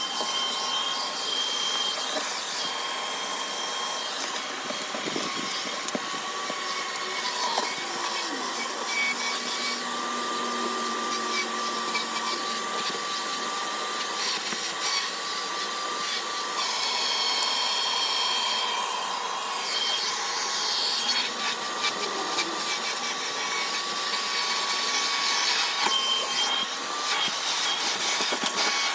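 Household vacuum cleaner with a narrow crevice-tool attachment starts abruptly and runs steadily, sucking debris off a car's carpeted floor. Its steady whine wavers slightly in pitch as the nozzle moves over the carpet.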